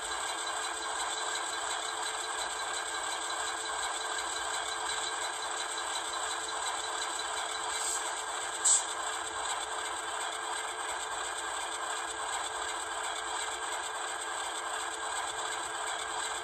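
Steady diesel-engine idle from the sound decoder of a Rapido HO-scale MLW M420W model locomotive, played through the model's small speaker, so it is thin with no bass. One short, sharp sound cuts in once a little past the middle.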